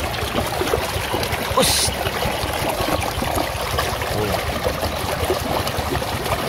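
Water gushing out of a hole in a muddy bank into a shallow channel, rushing and splashing steadily, with a short high hiss about a second and a half in.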